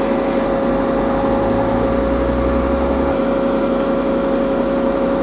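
JCB 3CX backhoe loader's diesel engine running steadily with a constant mechanical drone; a deeper low hum drops out about three seconds in.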